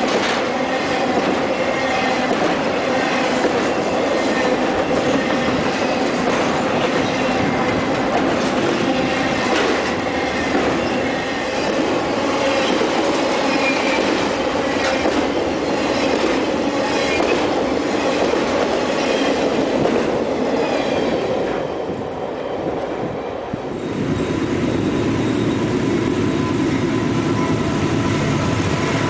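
Intermodal freight train of trailers on flatcars rolling past close by: steady wheel-on-rail noise with repeated clicking over the rail joints and a high squeal from the wheels. The noise dips briefly about three-quarters of the way through, then returns with a heavier low rumble.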